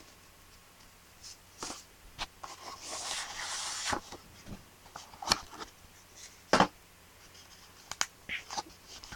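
A pen gift box being handled and opened: a longer sliding scrape about three seconds in, with scattered sharp clicks and taps.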